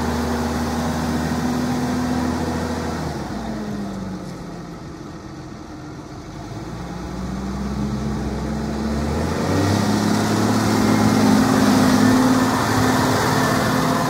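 New Holland T7.170 tractor's diesel engine running as the tractor is driven about. It fades a few seconds in as the tractor moves away, then grows louder as it comes back close, its pitch rising partway through.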